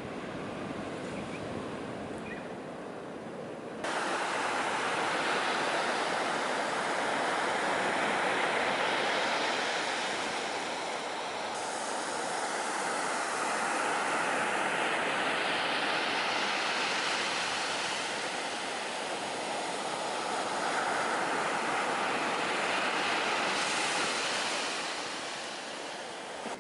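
Sea surf washing on the shore, a steady rushing noise that swells and eases over several seconds. It jumps suddenly louder about four seconds in.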